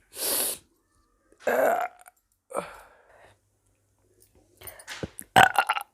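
A woman burping several times after drinking to bring the burps up, with the loudest burp near the end.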